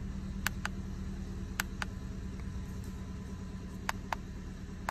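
Plastic keypad buttons of a Foxwell BT-715 battery analyzer clicking as they are pressed to page through test results: three quick double clicks a second or two apart. A steady low hum sits underneath inside the car.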